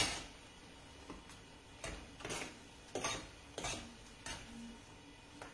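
Spoon stirring a thick millet risotto in a non-stick frying pan, scraping the pan in short strokes about every half second or so, with one sharp knock of spoon on pan at the start.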